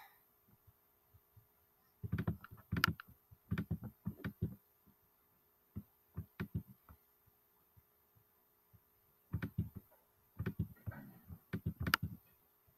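Quick runs of light taps and dull knocks in three bursts, each one to three seconds long.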